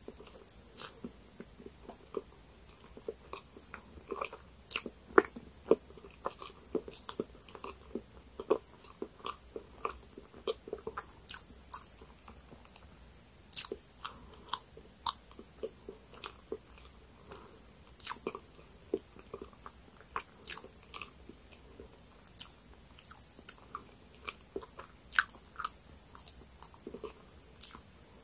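Close-miked chewing of a mouthful of soft cake with cream, with the lips closed: irregular small wet clicks and smacks from the mouth, a few sharper ones among them.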